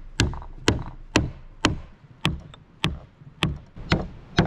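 Rubber mallet knocking wooden dowel pegs into drilled holes in a half-log board: about nine even blows, roughly two a second. The pegs are a tight dry fit, going in without glue.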